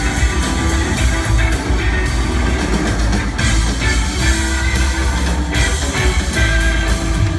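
Live rock band playing an instrumental jam: electric guitar lines over a full drum kit and bass.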